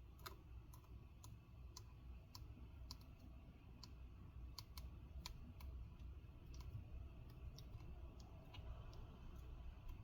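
Faint, irregular small clicks, a few a second, over a low steady hum, as an old stretch-release adhesive strip holding a laptop screen is slowly pulled out.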